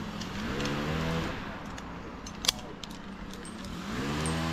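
A tree climber's strained grunts of effort while hauling himself up the rope, two of them, each rising in pitch and then holding. A sharp metallic clink of climbing hardware comes in between.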